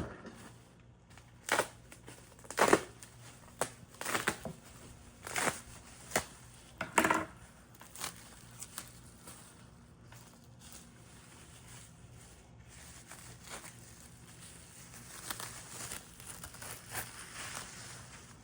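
Packing material being crumpled and pulled about by hand while a box is unpacked: a run of sharp, irregular crinkling rustles in the first half, then softer, scattered handling noises.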